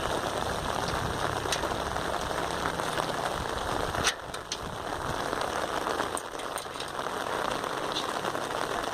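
Steady rain falling, an even hiss with scattered sharp drop clicks; it dips briefly about four seconds in.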